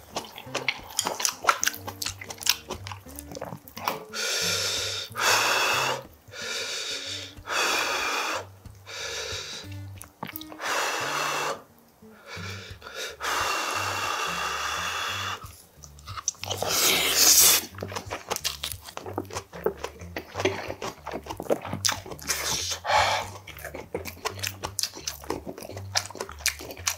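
Close-miked chewing of rice and braised pork kimchi stew, with small wet eating clicks, over background music.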